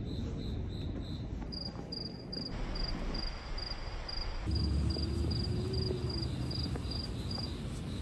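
Crickets chirping in even pulses, about three chirps a second: one pitch at first, then a higher-pitched chirper from about a second and a half in. Under them is a steady low outdoor rumble.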